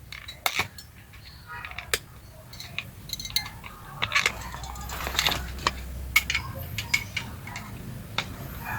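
Irregular clicks and knocks of plastic and metal parts being handled and worked loose while a car seat belt retractor is taken apart.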